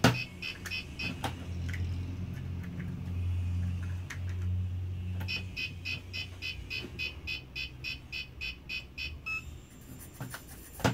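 WLtoys V911 micro RC helicopter's motor and rotor running while held in hand, a low steady hum that is strongest in the first half, being tested after a new board and motor repair. Rapid electronic beeping, about four beeps a second, comes at the start and again from about five to nine seconds in.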